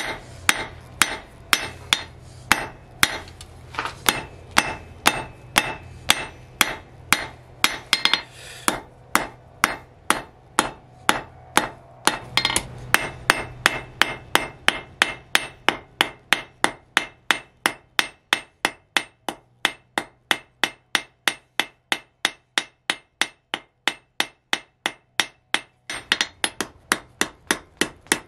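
Blacksmith's hand hammer striking red-hot steel bar on an anvil in a steady rhythm, each blow ringing off the anvil. The blows come about two a second at first and quicken to about three a second about halfway through.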